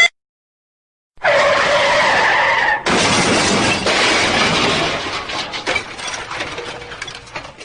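Car crash sound effect: tyres screech for about a second and a half, then a sudden loud smash with shattering, its debris clattering and fading out over several seconds.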